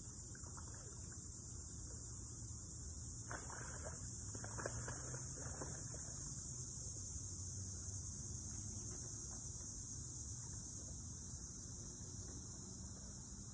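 Steady high-pitched evening insect chorus, a continuous chirring that does not let up, with a few brief soft rustles about three to six seconds in.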